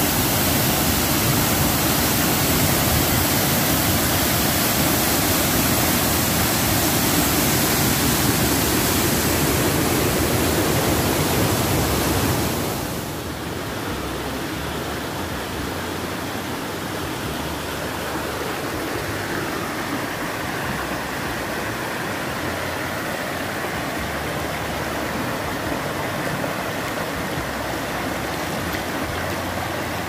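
Small waterfall pouring over boulders into a pool, a loud, steady rush of water. About twelve seconds in it gives way to the quieter, steady rushing of a shallow rocky stream running over stones.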